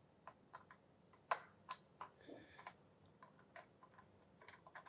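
Faint, irregular light clicks and ticks of a small Allen key turning the stainless-steel countersunk screws of a motorcycle tank ring, snugged only hand-tight.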